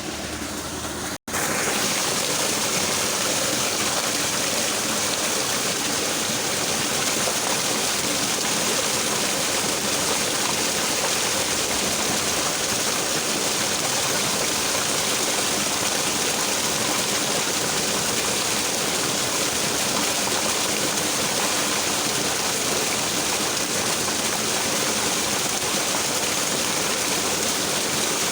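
A small, fairly swift stream babbling and rushing steadily. The sound cuts out for a split second about a second in, then carries on unchanged.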